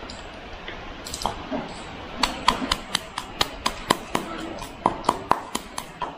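Mortar and pestle pounding fresh turmeric, ginger, garlic and chilli for a fish marinade: a quick, even run of sharp knocks, about four a second, starting about two seconds in.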